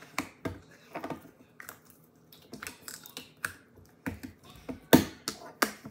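Irregular small clicks and taps of hard plastic slime-toy parts and tubs being handled on a table, the loudest two about five seconds in.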